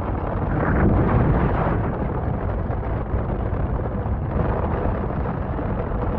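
Strong storm wind buffeting the microphone: a loud, steady low rumble of noise with no break.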